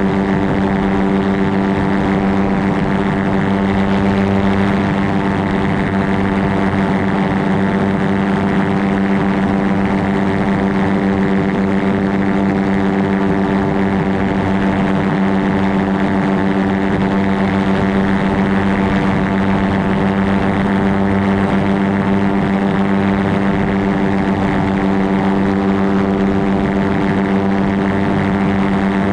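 Aerolite 103 ultralight's two-stroke engine and pusher propeller running steadily in level flight at one unchanging pitch, with wind rushing past the open cockpit.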